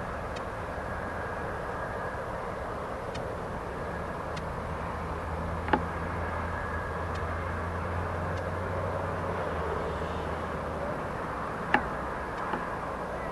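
Steady, distant rumble of aircraft engines, heard as outdoor airport ambience. A low hum swells through the middle, and two sharp clicks sound about six seconds apart.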